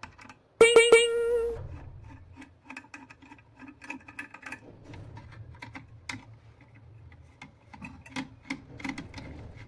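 A short, loud ringing tone about half a second in, then a run of small clicks and taps as the terminal connections of an electric iron are worked on with a screwdriver.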